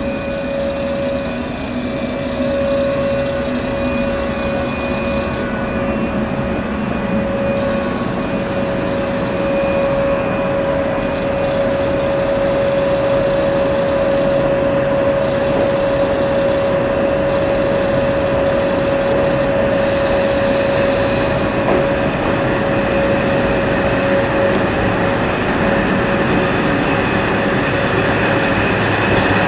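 485-series 'Hana' electric train pulling slowly out of the station, its running noise building gradually, with a steady mid-pitched hum throughout.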